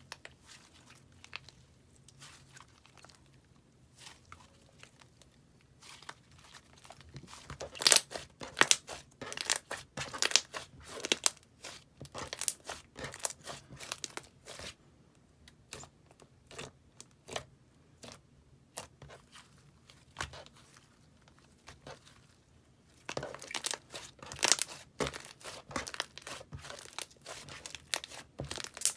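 Slime being pressed and stretched by hand, making crisp crackling and popping clicks. The clicks come in dense, louder runs, with sparser stretches before and between them.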